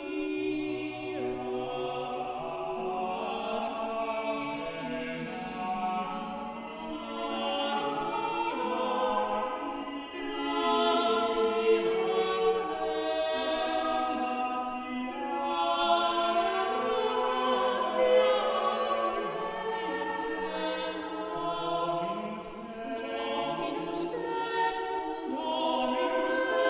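Background choral music: voices singing slow, sustained chords that shift every second or two.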